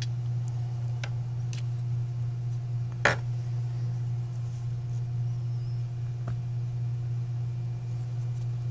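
A smartphone handled on a workbench: a few light clicks and one sharp tap about three seconds in, over a steady low hum.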